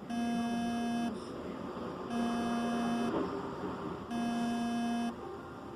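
Colormaq LCA 11 washing machine's buzzer beeping: three buzzy one-second beeps, about two seconds apart, over a faint background noise.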